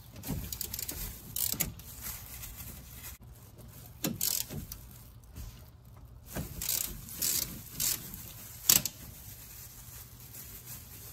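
Ratchet wrench with a 14 mm socket working on the rear brake caliper bolts: irregular short bursts of ratcheting and metallic clicks, the sharpest click near the end.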